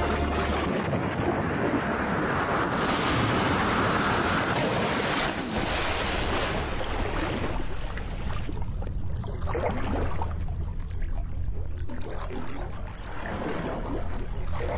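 Underwater scuba audio: a diver's exhaled bubbles rushing past the camera housing in surges every few seconds, over a steady low hum.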